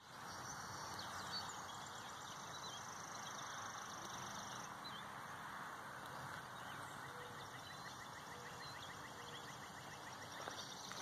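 Quiet outdoor ambience: a faint even hush with distant birds chirping now and then.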